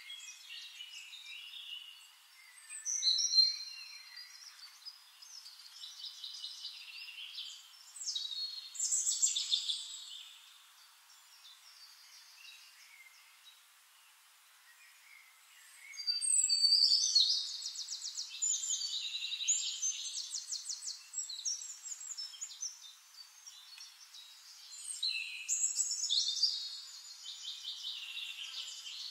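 Forest songbirds singing, high-pitched chirps and trills in phrases that come and go. The louder bursts come about three and nine seconds in, then a longer spell of rapid trilling from about 16 to 21 seconds, and again near the end, with a quieter lull in between.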